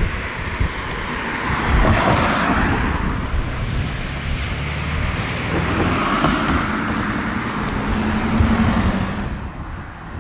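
Road traffic: vehicles driving past on the road. Tyre noise swells and fades twice, the second time with a low engine hum that ends shortly before the close.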